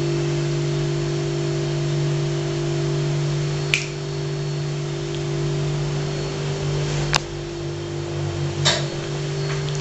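Steady electrical hum with a few fixed tones, broken by three sharp clicks about a third of the way in, about two-thirds in and near the end.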